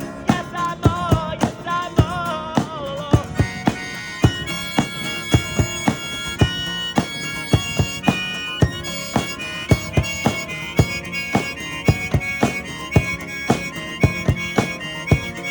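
Harmonica playing a solo over accompaniment with a steady beat: wavering, bending notes at first, then held notes from about four seconds in.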